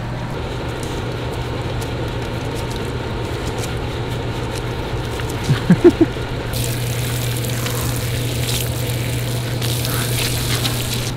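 Water hissing from a hand-held RV outdoor shower head as a dog is rinsed, in two spells through the second half, over a steady low hum. A few short, loud pitched sounds come about halfway through.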